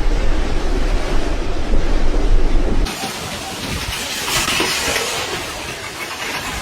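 Storm wind: heavy gusts rumbling on the microphone, then an abrupt cut about three seconds in to a quieter, steady rushing hiss.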